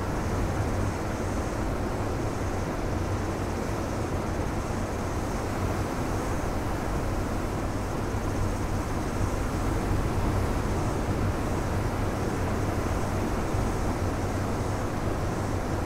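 Ocean surf breaking on a boulder shore: a steady, deep rumble of waves with no single crash standing out.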